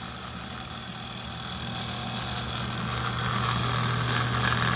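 Steady electric hum of the EDM setup's coolant water pump, with coolant running and splashing out of a plastic-bottle splash cup into the tank; the splashing grows louder from about two seconds in.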